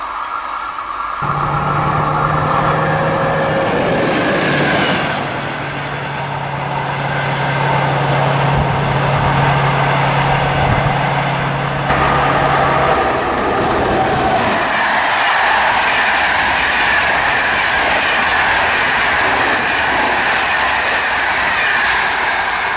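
Locomotive-hauled passenger trains of Corail coaches rolling past on the rails, with a steady low hum through the first half that stops about two-thirds of the way in.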